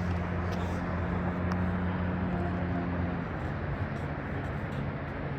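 A large engine drones steadily under an even rumble of outdoor vehicle noise, and its hum drops away about three seconds in.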